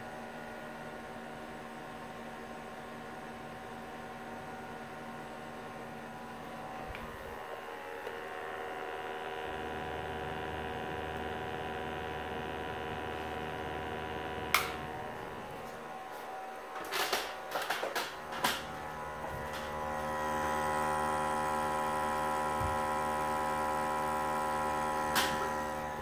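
A small electric motor hums steadily with several tones at once. It gets louder about 8 seconds in and again about 20 seconds in. There is a sharp click about 14 seconds in and a few knocks and rattles of handling at around 17 to 18 seconds.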